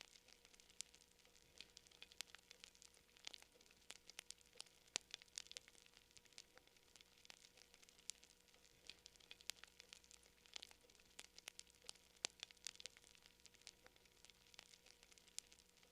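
Campfire crackling quietly: irregular sharp pops and snaps, several a second, with no pause.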